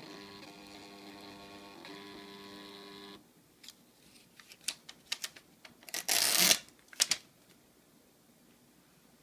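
Thermal receipt printer in a coin-operated WiFi vending kiosk printing a voucher, its paper-feed motor whining in a steady set of tones that stops about three seconds in. Paper crinkles and clicks follow as the slip is handled, with a brief loud rip about six seconds in as the receipt is torn off.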